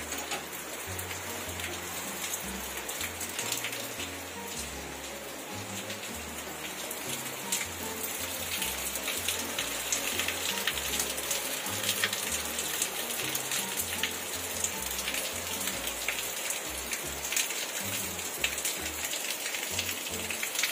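Rain from Cyclone Yaas falling steadily, with many sharp drop hits close by, over background music with a low bass line.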